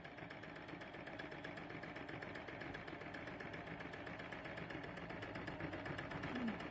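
Electric sewing machine running steadily at an even speed, with a rapid regular rhythm of needle strokes, as it stitches a seam closed in a skirt's elasticated waistband.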